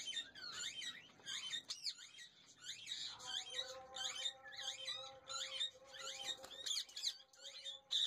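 Parakeets chirping faintly in an aviary: a rapid string of short, high chirps. A faint steady hum joins about three seconds in.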